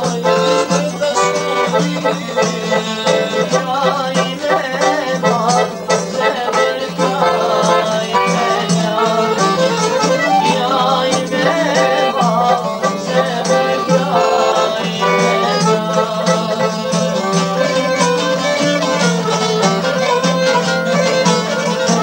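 Albanian folk ensemble playing an instrumental passage: accordion with plucked çifteli and sharki lutes and a frame drum, over a steady low note.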